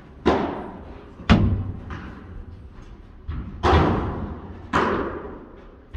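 Padel rally: about six sharp hits at uneven intervals as the ball is struck by solid padel rackets and bounces off the court and glass walls. Each hit rings out with a long echo in the hall.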